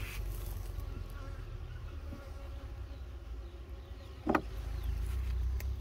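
Honeybees buzzing steadily around an open wooden hive, with a single sharp knock of the metal hive tool against the frames about four seconds in.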